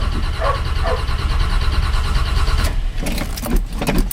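Chevrolet K10 pickup's engine cranking over on the starter with the choke set, cold and not catching, which the owner takes for a flooded engine from pumping the gas. The cranking stops about three seconds in, followed by a run of sharp clicks and knocks.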